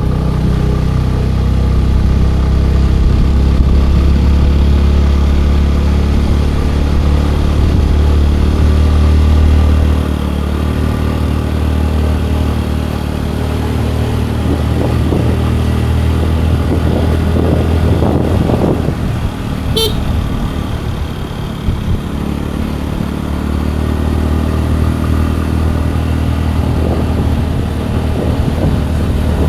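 Scooter engine running steadily under way, louder for about the first ten seconds and then easing to a lower, quieter note. About two-thirds of the way through comes a brief high-pitched vehicle-horn toot.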